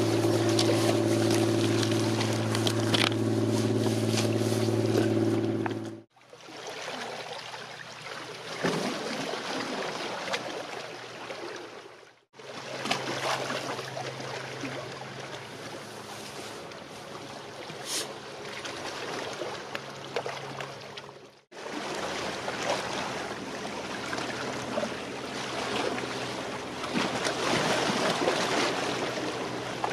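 A small fishing boat's engine running steadily as it passes at speed, stopping abruptly about six seconds in. After that, small waves lapping and splashing at the shore, with a faint low engine hum for a few seconds in the middle.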